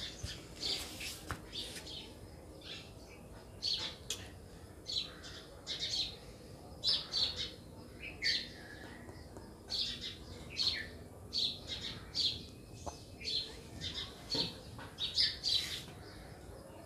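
Small birds chirping: many short, high calls repeating throughout.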